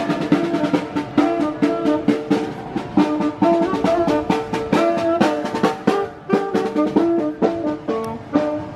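A small street band playing as it walks past: a drum beating a quick, steady rhythm under a saxophone melody.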